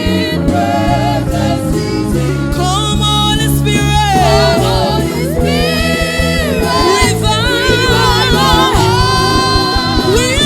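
Live gospel praise music: lead and choir voices singing sustained, gliding lines over keyboard and bass.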